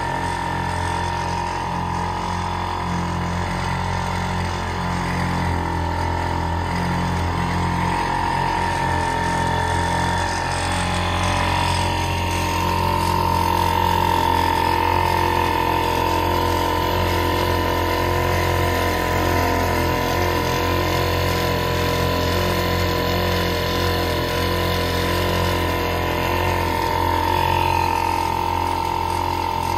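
1948 Evinrude Sportsman 1.5 hp two-stroke outboard running steadily at cruising speed with a steady whine over its drone, pushing a small aluminium boat through calm water.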